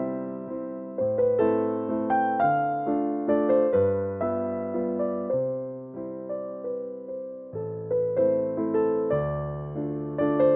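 Background music: a gentle piano melody over bass notes, each note struck and fading in a steady rhythm.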